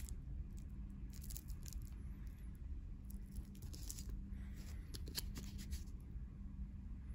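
Faint rustling and crinkling of plastic-wrapped soap and a small cardboard soap box being handled, in several short bursts, over a low steady hum.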